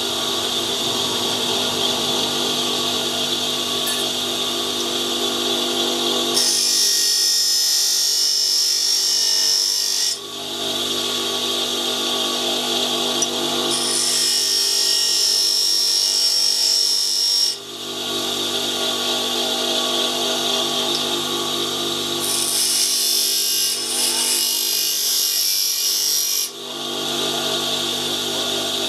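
Bench grinder motor running steadily, with three spells of high, hissing grinding, each three to four seconds long, as a high speed steel tool bit is pressed against the stone to form a 55-degree thread-cutting point.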